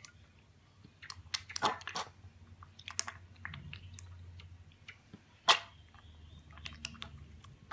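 A piglet slurping milk from a stainless steel bowl: irregular wet smacking and lapping clicks, with one louder sharp knock a little past the middle.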